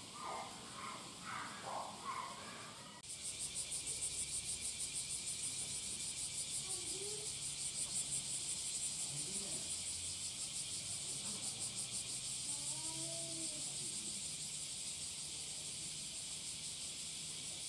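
Cicadas singing in a loud, steady, pulsing chorus that comes in suddenly about three seconds in. Before it come a few short pitched calls.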